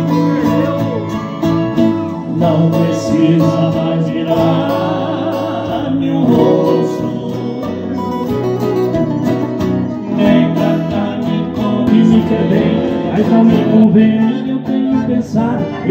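Acoustic guitars strummed and picked in a live Brazilian sertanejo song, a steady instrumental passage between sung verses.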